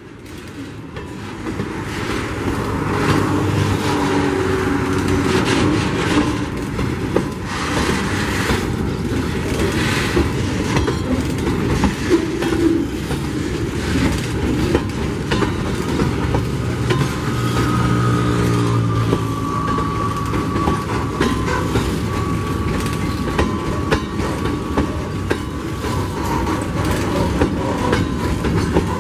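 Loaded mineral hopper wagons of a long freight train rolling past close by, their wheels clattering steadily over the rail joints and growing louder over the first few seconds. A thin, steady high squeal from the wheels joins in around the middle.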